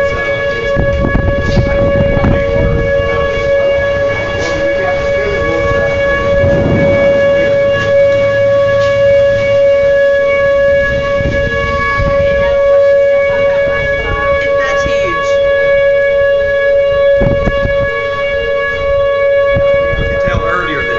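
Outdoor tornado warning siren sounding a steady, unchanging two-note tone, over a low rumble of wind on the microphone.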